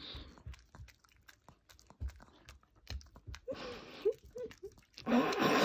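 Chihuahua chewing and smacking at a big marshmallow: a run of soft, wet clicks, with a few short squeaky sounds partway through. Near the end comes a loud breathy burst about a second long.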